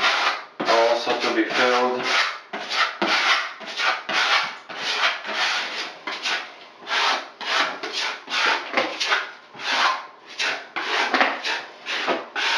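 A hand applicator rubbing and scraping liquid waterproofing membrane (Laticrete Hydro Barrier) onto cement-board shower walls, in rhythmic strokes about two a second.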